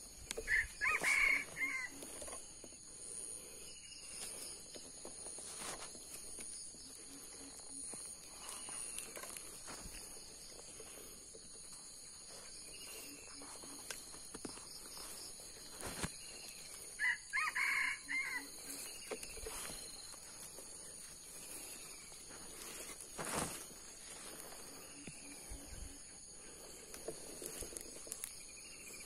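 Junglefowl rooster crowing twice, about sixteen seconds apart, each a short broken crow, over a steady high drone of insects.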